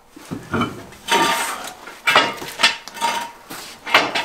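A run of about eight metal clinks and clanks, some ringing briefly: lug nuts, tools and the steel wheel being handled as a car's rear wheel is taken off.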